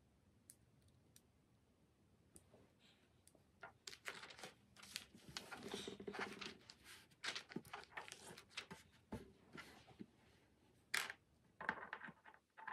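Small plastic LEGO bricks clicking and rattling as they are picked out of a loose pile and pressed together, with paper rustling from the instruction booklet being handled. Only a few scattered clicks at first, then busier handling from about four seconds in, with a sharp click near the end.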